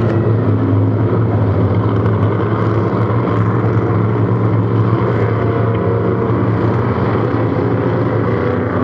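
Cracker box racing boats running flat out in a pack, a loud, steady engine drone carried across the water.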